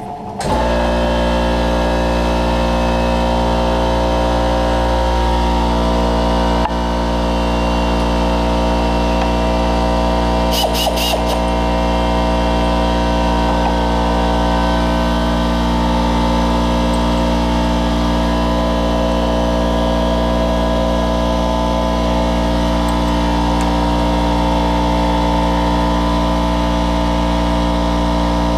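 G0704 benchtop milling machine's spindle starting abruptly and running at a steady speed, with a 3/16 inch end mill in the spindle. A brief cluster of high clicks comes about ten seconds in.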